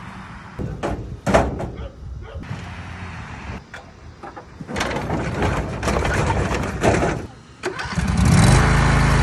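Metal clanks and rattling as a John Deere riding mower is unloaded from a pickup bed down loading ramps. About eight seconds in, the mower's 22 hp Briggs & Stratton V-twin starts and settles into a steady, loud run.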